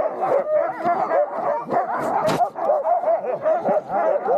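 A team of sled huskies yelping, barking and whining all at once in a dense, overlapping chorus: the dogs are eager to run while the sled is held at a stop.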